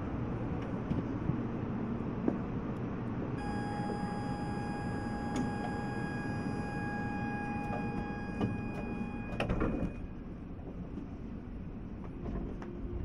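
E2 series Shinkansen standing at a station. A steady, high door-closing buzzer sounds for about six seconds, then the sliding doors close with a short thump about nine and a half seconds in, over a low, steady rumble from the train.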